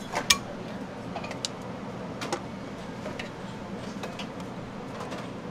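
Kitchen clatter of metal utensils and bowls at a noodle stall: a run of sharp clinks and knocks, the loudest about a third of a second in, then scattered ones every second or so, over a steady background hum from the steaming noodle cooker.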